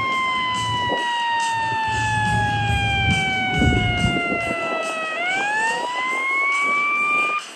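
Federal EQ2B mechanical siren on an airport crash fire truck, its wail sliding slowly down in pitch as the rotor coasts, then winding back up about five seconds in and cutting off near the end.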